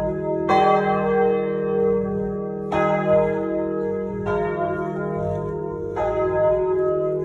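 Three large swinging bronze church bells (about 1000, 750 and 500 kg) ringing together in full peal, heard close up from inside the belfry. Four clear clapper strikes come every one and a half to two seconds over a continuous, overlapping ringing hum.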